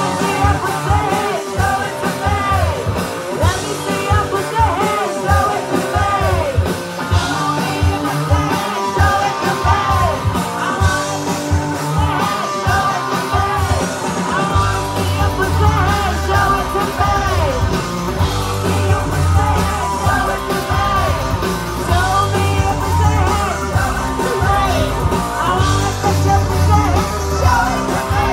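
Live rock band playing with singing, heard from the crowd. A heavy bass comes in about halfway through.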